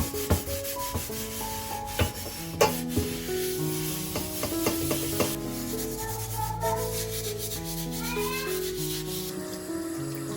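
Scrubbing and rubbing on a surface during cleaning, with a few sharp knocks, over background music of slow held notes. The scrubbing stops about nine seconds in while the music carries on.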